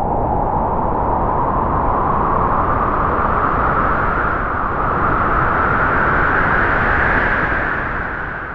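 Halloween horror sound effect: a long rushing whoosh of noise whose pitch slowly rises, starting to fade out near the end.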